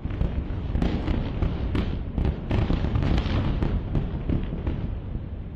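Secondary explosions crackling and popping in a fire set by an airstrike: a dense run of sharp cracks over a low rumble, cutting off abruptly near the end.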